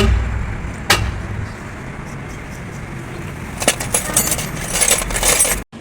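Hammer blows on the steel of a truck drive shaft during a universal joint cross change: a ringing strike right at the start and another about a second in. Later comes a couple of seconds of dense metallic clinking and rattling, which cuts off suddenly.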